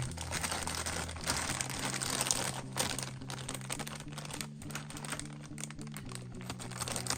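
Plastic packaging crinkling and crackling as it is handled, with steady background music underneath.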